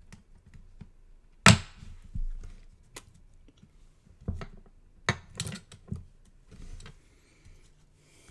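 A series of knocks and taps as a clear acrylic block and paper pieces are handled and set down on a cutting mat, the loudest about a second and a half in.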